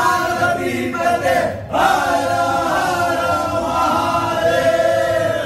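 A group of voices chanting in long held notes, with a short dip about a second and a half in before the chant swells again.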